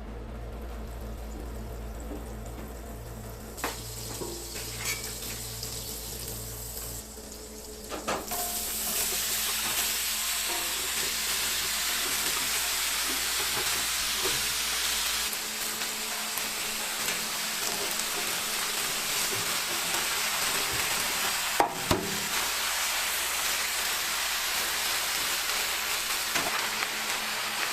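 Food frying on a hot cooking surface for a burger: after a few seconds of low hum and light knocks, a loud, steady sizzle starts about eight seconds in and keeps going, with a couple of sharp metal clicks near the end.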